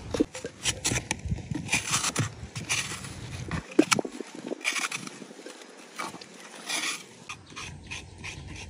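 Soft coconut flesh being scraped out of the husk with a hand scraper: a series of uneven rasping strokes with short pauses and a few sharp clicks.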